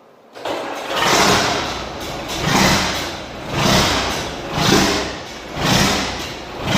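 John Deere 4440's six-cylinder diesel engine starting up and running, its sound swelling and fading about once a second: an unsteady run that the owner puts down to the fuel shut-off being set a little too far.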